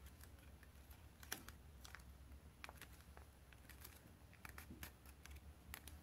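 Faint, scattered crackles and taps of a sheet of origami paper being folded and creased by hand, over a low steady hum.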